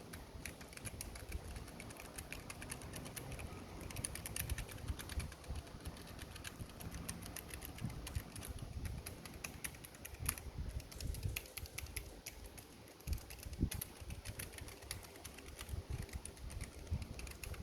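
Keychron K3 low-profile mechanical keyboard being typed on: a quick, continuous run of light key clicks with brief pauses.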